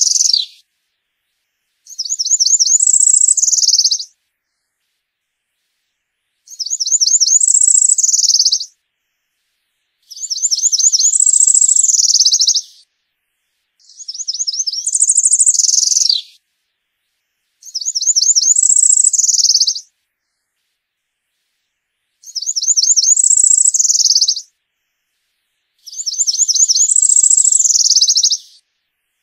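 A Setophaga wood-warbler singing a high, buzzy rising song, repeated seven times at intervals of about four seconds. Each song lasts about two and a half seconds: a run of quick notes climbs into a high buzz, and some end with a quick downward slur.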